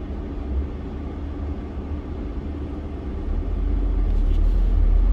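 Low, steady rumble of a car's engine and tyres heard from inside the cabin while driving in traffic, swelling louder about three seconds in.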